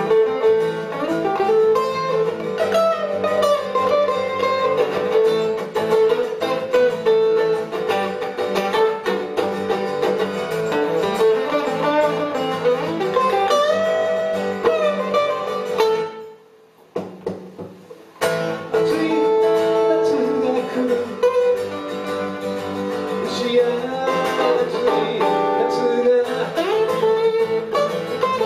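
Small live band playing a song, with guitars to the fore. The music breaks off for about two seconds past the middle, then picks up again.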